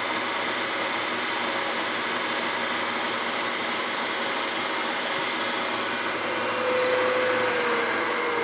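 Milling machine spindle running steadily as a number 8 drill bit drills through a cast aluminium part. Near the end a humming tone in the sound sags slightly in pitch and the sound grows a little louder.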